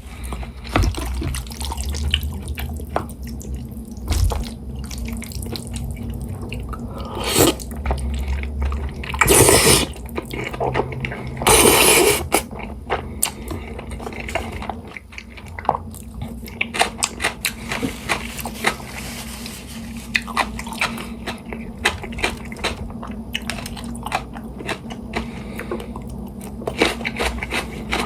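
Jajangmyeon eating sounds: a person chewing noodles thick with black bean sauce, with constant small wet mouth clicks and a few loud slurps between about seven and twelve seconds in. A steady low hum runs underneath.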